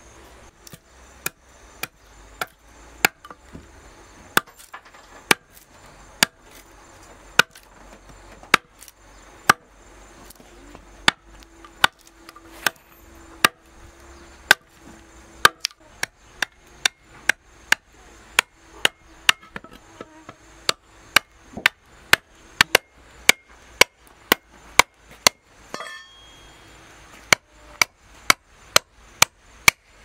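Hand tool chopping and striking a wooden board in a steady run of sharp blows, about two a second, coming a little faster in the second half, as the board is trimmed into a lid for a log beehive.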